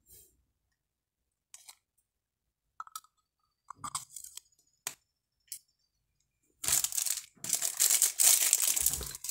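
A few small plastic clicks and taps as a lipstick is capped and handled, then from about six and a half seconds in, loud, continuous crinkling and rustling of packaging being handled as the box is emptied.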